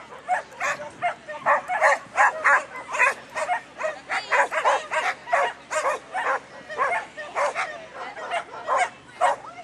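A dog barking excitedly in a fast, unbroken string of short yapping barks, about three to four a second.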